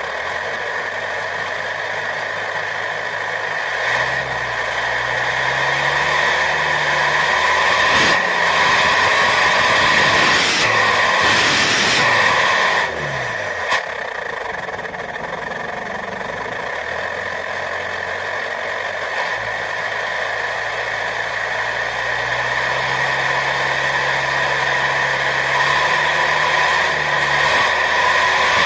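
Engine fitted with a branched 'suos' aftermarket exhaust, idling and being revved in steps over a steady high whistling hiss. The revs rise about four seconds in, surge into a loud rushing blast that cuts off suddenly around thirteen seconds in, and climb again near the end.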